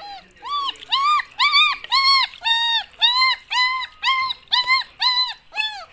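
A dog whining and crying in a quick run of short, high cries, each rising and falling in pitch, about two a second.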